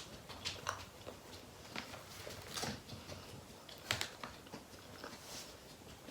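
A person eating close to the microphone: biting into and chewing a taco, with scattered soft mouth clicks and crunches, a couple of them sharper about two and a half and four seconds in.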